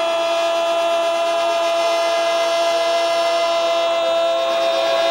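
A football commentator's drawn-out goal cry, one long note held steadily without a break.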